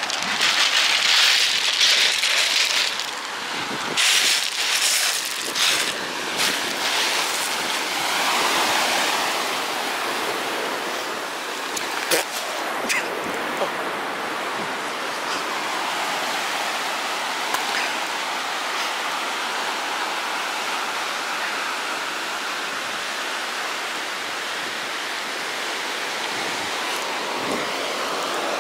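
A steady rushing noise, with a cluster of sharp knocks and rustles in the first several seconds and a single knock about twelve seconds in.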